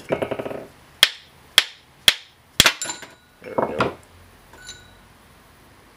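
Small-engine carburetor being knocked to free a stuck part: a brief rattle, then four sharp taps about half a second apart.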